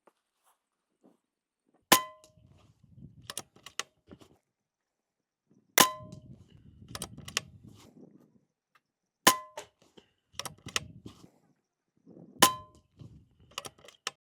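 Epic Two PCP air rifle firing 30-grain slugs: four shots about three and a half seconds apart, each a sharp crack with a short metallic ring. Lighter clicks and handling noise come between the shots as the action is cycled.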